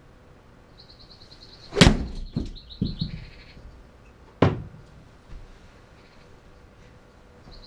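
An iron strikes a golf ball off a hitting mat into a simulator screen about two seconds in: one sharp crack with a few smaller knocks just after it. A second sharp knock comes about two and a half seconds later.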